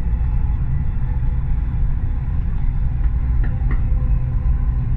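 Dubai Metro Red Line train running, heard from inside the carriage as a steady low rumble with a faint whine above it. Two small clicks come a little past halfway.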